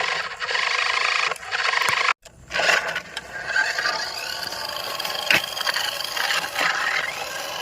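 Remote-control toy race car driving over rough ground: a steady scraping and rattling from its wheels and plastic body, broken off briefly about two seconds in.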